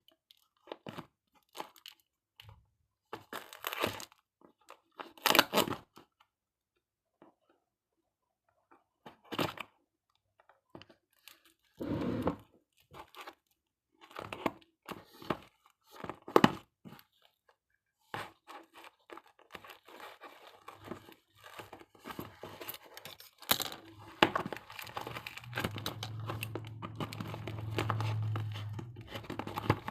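Packaging being torn open and crinkled by hand: separate rustling tears over the first half, then steady crinkling handling. A low hum joins in near the end.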